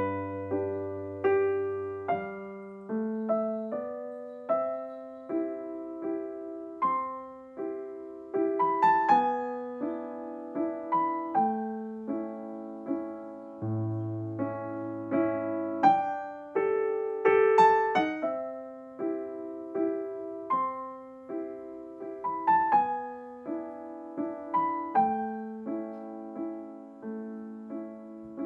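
Background piano music: a slow, gentle melody of struck notes, one or two a second, over held low notes.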